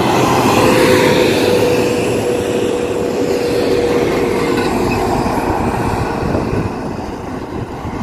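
Large tour coaches driving past close by, one after another: diesel engine and tyre noise, with a faint held tone through the first half. The noise eases slowly toward the end.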